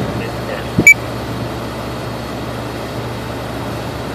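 Steady low machine hum, like a running engine or fan, with one short, sharp high-pitched electronic beep about a second in.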